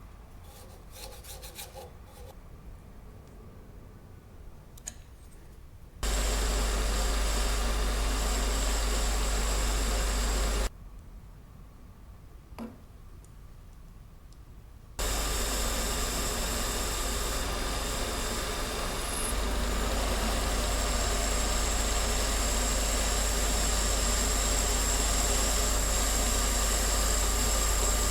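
A few light clicks of handling, then a small metalworking machine tool running and cutting with a steady, even noise, which starts and stops abruptly twice.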